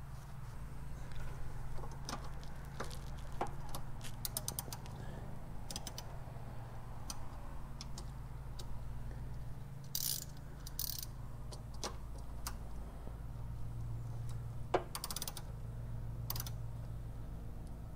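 Hand wrench working the threaded fitting of a braided stainless steel brake line: scattered metal clicks and several short bursts of rapid clicking as the fitting is turned tight. A steady low hum runs underneath.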